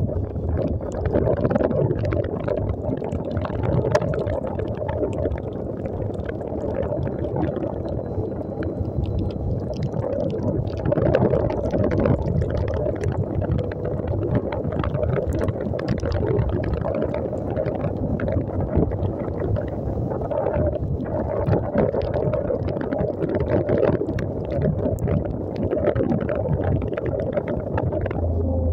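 A small motorcycle riding through water on a flooded dirt track: wind buffeting the microphone, with the tyres splashing and crackling through puddles over the engine running.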